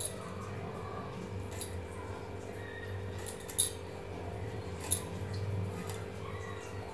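Suran (elephant foot yam) being cut on a boti, an upright floor-mounted blade: soft scraping and small clicks as the pieces are pushed through the blade, with two sharper clicks about a second apart a little past halfway.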